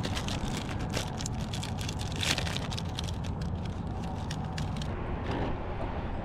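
Steady low rumble of traffic on the bridge, with many small clicks and crackles over it and a louder cluster of clicks a little over two seconds in.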